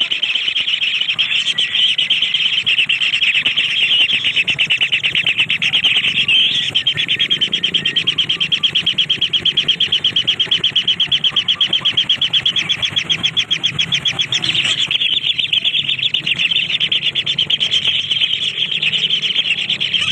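A bird calling in a rapid, steady stream of short high chirps, several a second, running on without a break and sharpest in the middle stretch.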